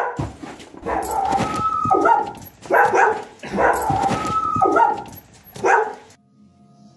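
Pet dog barking in short bursts, the same run of barks repeating about every three seconds as a loop. The barks stop about six seconds in and faint steady tones take over.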